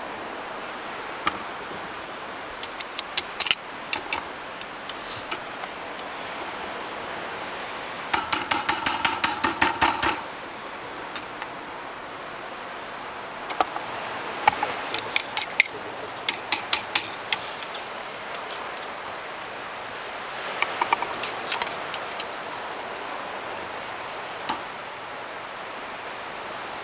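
Sharp metallic clicks and rattles of a steel knife knocking and running across the wires of a hinged wire grill basket, in several scattered clusters, with a quick run of a dozen or so ringing strikes about eight seconds in. A steady rush of background noise lies underneath.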